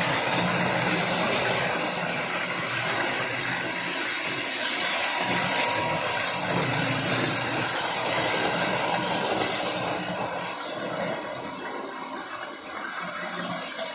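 Several model trains running at once: a steady mix of electric motor hum and wheels rattling over the track as trains pass close by.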